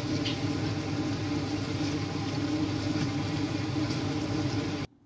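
Kitchen range hood extractor fan running with a steady motor hum over a wok on a gas burner. The sound cuts out abruptly near the end.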